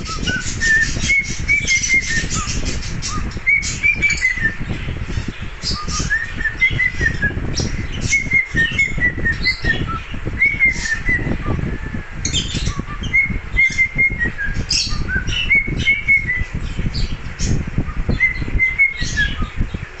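Cockatiel whistling its song: a short phrase of clear whistled notes that rise and then fall, repeated about every two seconds. Underneath are a constant low rumble and many sharp clicks.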